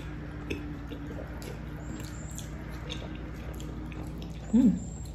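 Quiet eating sounds at a meal: scattered small clicks and wet mouth sounds of chewing and utensils over a steady low hum. A brief voice-like sound comes about four and a half seconds in.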